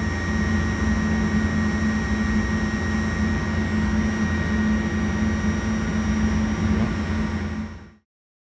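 Wind tunnel fan running steadily at its top speed (50 Hz drive setting): a steady rush of air with a low hum and faint steady high tones. It fades out quickly just before the end.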